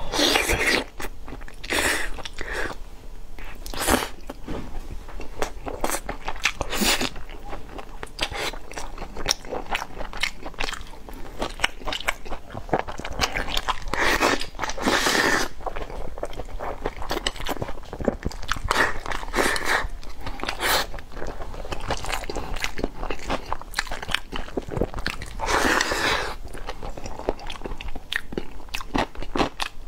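Close-miked eating of braised chicken wings and rice: wet chewing, biting and crunching, with a louder wet mouthful noise every few seconds.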